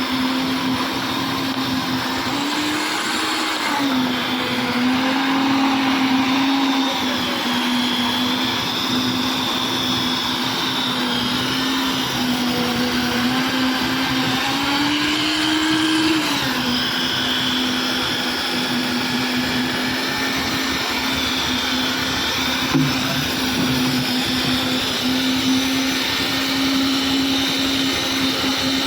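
Concrete mixer machine running steadily under load, its engine hum rising briefly in pitch and settling back twice, over the noisy churn of the machine.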